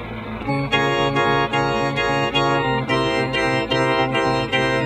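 Organ music playing short repeated chords at a bouncy pace, coming in about half a second in.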